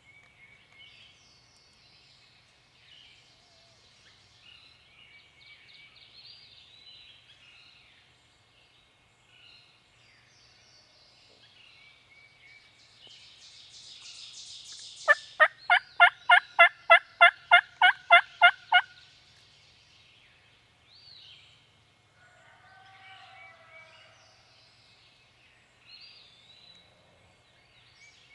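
A loud run of about a dozen evenly spaced turkey yelps, roughly three a second for some four seconds, over songbirds singing in the woods.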